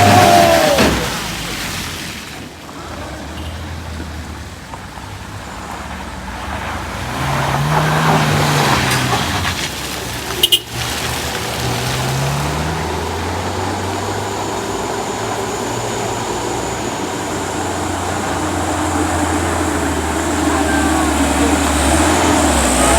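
Vehicle engine running on a steep climb, revving up and back down twice in the middle and then holding a steady drone, with one sharp bang about ten and a half seconds in.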